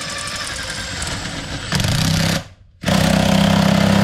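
A power tool running in bursts against a stuck part: a steady run, a louder short burst about two seconds in, a brief stop, then a long loud run with a steady hum and rapid rattle.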